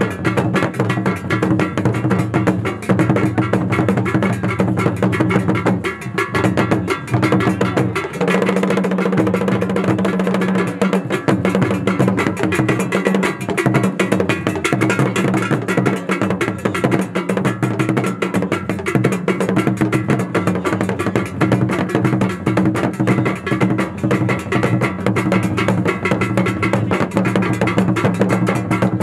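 Live festival music: drums and sharp wood-block-like clicks in a dense, fast rhythm over sustained low tones, one of which shifts in pitch about eight seconds in.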